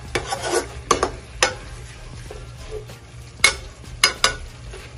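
A spatula stirring chicken pieces in a nonstick frying pan: a scraping stroke near the start, then sharp clacks of the spatula on the pan, two in quick succession near the end.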